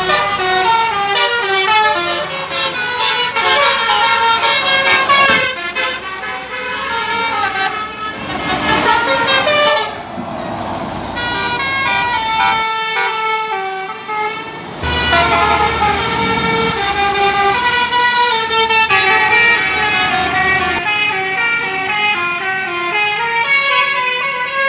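Basuri multi-tone 'telolet' air horns on tour buses playing quick melodic runs of tooting notes, one tune after another. A rushing noise breaks in about ten seconds in.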